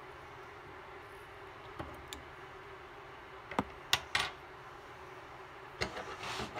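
A few sharp clicks and taps of small tools handled at a fly-tying vise, three close together about three and a half seconds in and another near the end, followed by a brief rustle of fingers at the fly.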